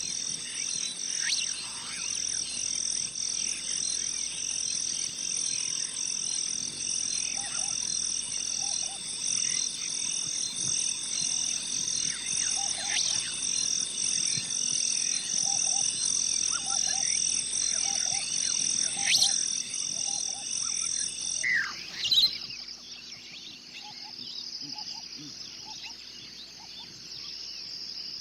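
Nature ambience: a steady, fast-pulsing high-pitched animal chorus with scattered bird chirps and short repeated lower notes. About 22 seconds in, a sharp call rings out, the pulsing chorus cuts off, and a quieter, softer trill carries on.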